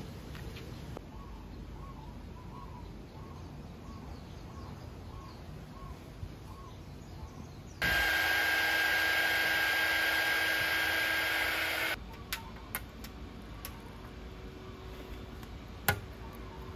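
A mini 300 W heat gun blows with a steady whine for about four seconds, starting about halfway through, as it heats a Vespa emblem's adhesive. After it stops come a few small clicks and one sharp snap as the emblem is pried off the panel by hand.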